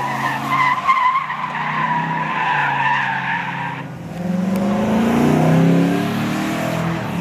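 A car's tires squealing in a long wavering screech over its running engine for about four seconds. The squeal then stops and the engine revs up, rising in pitch as the car accelerates away.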